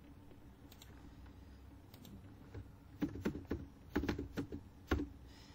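Typing on a computer keyboard: a few scattered key clicks, then a quick run of keystrokes from about three seconds in.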